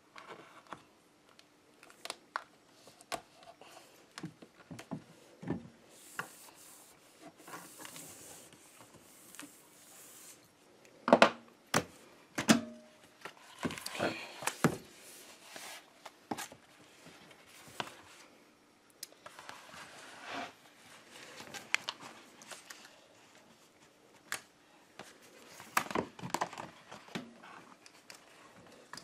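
Protecto Wrap self-adhesive flashing tape being handled and unrolled: its paper backing crinkling and tearing, with scattered taps and knocks against the wooden window framing, the loudest a few sharp knocks about eleven seconds in.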